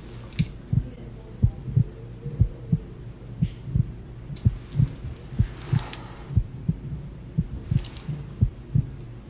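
Heartbeat sound effect: a slow, regular lub-dub thump about once a second over a low hum, building suspense. A brief rustle about six seconds in.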